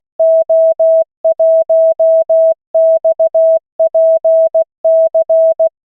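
Computer-generated Morse code at 16 words per minute: a single steady tone keyed on and off in dots and dashes, sending callsigns to be copied by ear. It stops near the end.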